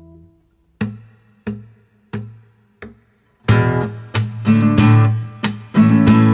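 Background music on acoustic guitar. A few single plucked notes ring out and die away, about two-thirds of a second apart, then fuller strummed chords start about three and a half seconds in.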